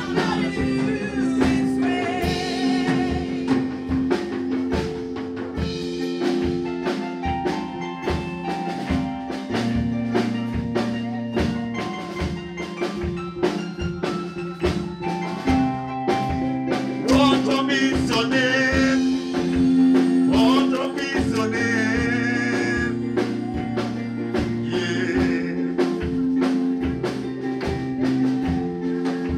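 Live gospel worship song: a group of singers at microphones over a band with drum kit, keeping a steady beat.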